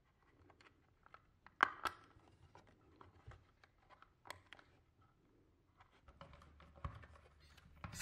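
Faint handling of a plastic smoke detector and its wire harness connector: light rubbing and scattered small plastic clicks, with two sharper clicks in quick succession about a second and a half in.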